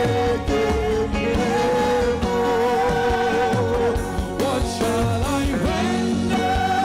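Live gospel band music with a male lead vocalist singing held, wavering notes, joined by backing singers.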